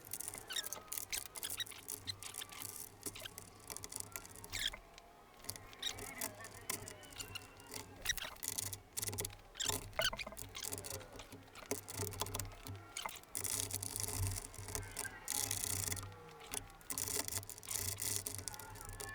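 Irregular light clicks, clinks and knocks of hand tools and metal parts being handled while motorcycle parts are refitted, with faint short squeaks and a steady low hum underneath.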